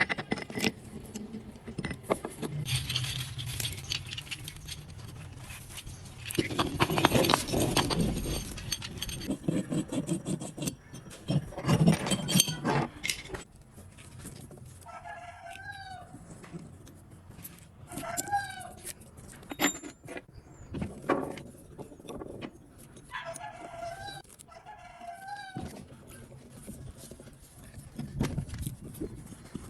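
Chickens clucking and a rooster calling several times in the second half, over earlier bursts of clattering, clicking and scraping workshop noise from hand work on metal parts.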